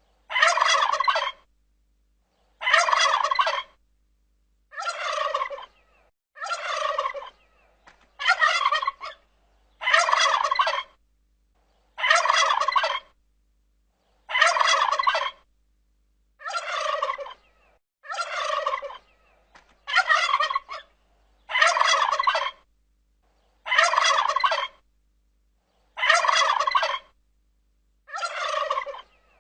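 Turkey gobbling over and over, about fifteen gobbles each roughly a second long and about two seconds apart, with dead silence between them: a turkey-gobble ringtone on a loop.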